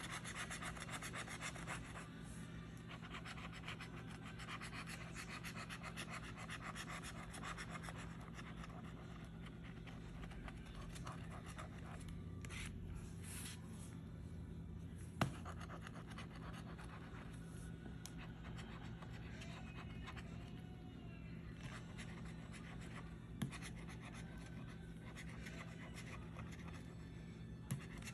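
A bottle opener's edge scraping the coating off a lottery scratch-off ticket: a faint, steady rasp of short scratching strokes. Three sharp taps stand out, about fifteen, twenty-three and twenty-eight seconds in.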